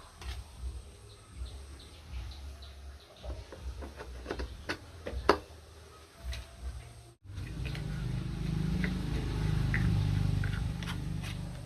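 Light clicks, taps and small squeaks of parts being handled on an old electric fan, then from about seven seconds in a steady low hum, as of the fan motor running.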